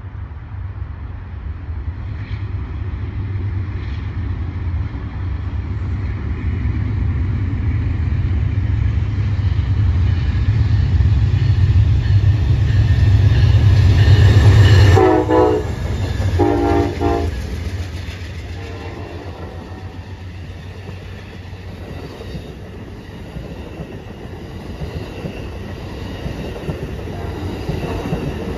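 Amtrak Coast Starlight passenger train approaching: its diesel locomotive's rumble builds steadily louder. As the locomotive draws level, its horn sounds two short blasts. The train's cars then roll past with a quieter clickety-clack of wheels on rail joints.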